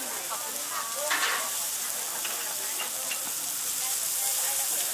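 Beef burger patty frying on a flat-top griddle, a steady sizzling hiss.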